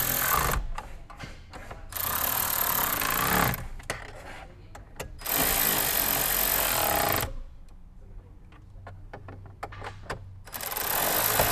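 Ratcheting screwdriver with a 10 mm socket clicking rapidly as it tightens bolts, in four bursts of one to two seconds each, with scattered single clicks and knocks between.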